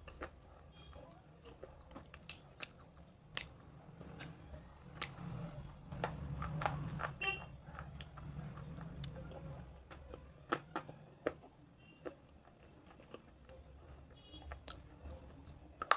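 Close-up ASMR crunching: irregular sharp, crisp crunches and crackles, several a second at times, over a low steady hum.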